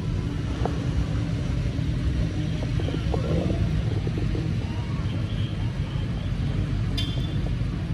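Sport motorcycle engines idling steadily at a drag strip start line, a low even rumble with no revving.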